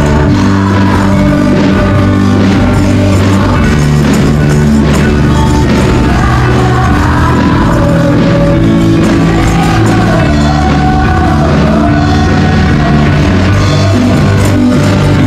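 Live praise and worship music: singers with microphones and a choir performing an upbeat song in the key of D over a band, with tambourines shaken along in time.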